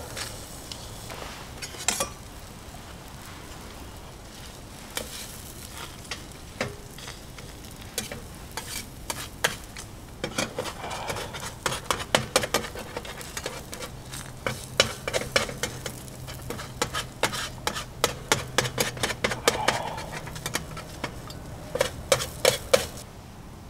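Okonomiyaki batter sizzling on a hot steel griddle plate while a spatula scrapes and taps on the metal, pushing the mixture into shape. The scraping and tapping are sparse at first, then come thick and fast through the second half.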